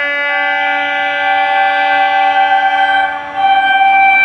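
Indian Railways locomotive air horn sounding one long, loud blast made of several tones together, briefly broken off about three seconds in and then sounding again.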